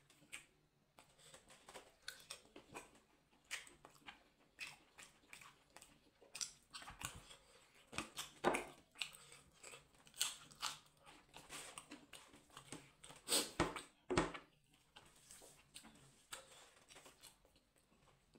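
Close-miked chewing and biting of meat and herbs eaten by hand: irregular mouth clicks throughout, a few louder ones around the middle.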